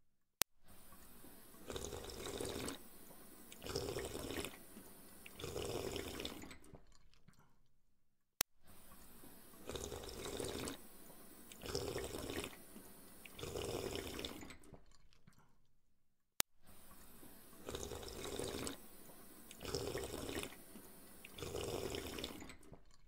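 Looped underwater water sound effect: bubbling, gurgling swells of water that rise and fade in an identical pattern about eight seconds long. It repeats three times, each time starting with a sharp click.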